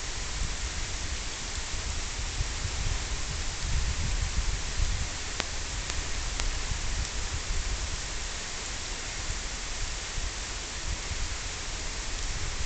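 Steady rainfall, an even hiss of rain with an unsteady low rumble beneath it.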